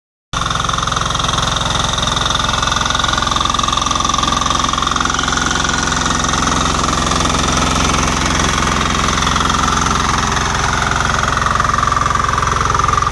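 VST 95DI Ignito power weeder's single-cylinder diesel engine running steadily with a fast, even clatter, under load while its rotary tines till the soil.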